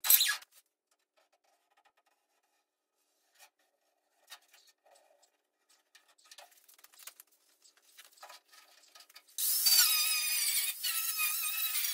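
Angle grinder with a cut-off wheel starting up near the end and cutting through thin body sheet metal of a VW Beetle: a loud, high grinding whine that wavers in pitch. Before it, faint rustles and clicks of masking tape being laid on the panel, and a short harsh noise at the very start.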